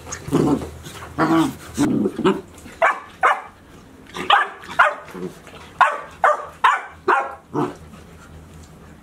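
Golden retriever puppies about ten weeks old barking and yapping in play, a quick run of short barks that stops near the end.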